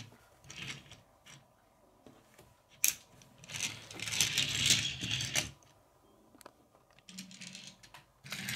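Majorette die-cast Dodge Challenger SRT Demon toy car handled on a wooden floor: small clicks and taps, a sharp click about three seconds in, then its wheels rolling and scraping along the boards for about two seconds.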